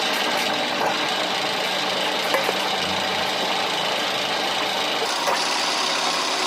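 A machine running steadily, with a couple of faint clicks.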